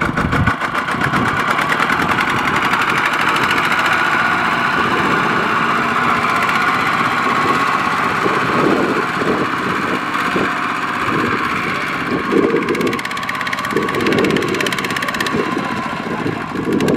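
Single-cylinder diesel engine of a two-wheel walking tractor (power tiller) running hard with a rapid, steady firing beat as it pulls a trailer loaded with rice sacks through mud.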